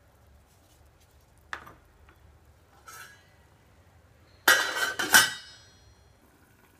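A stainless-steel lid is set down onto a steel cooking pot to cover it. It clatters in two quick metal clinks about four and a half seconds in and rings briefly. Two lighter knocks come earlier.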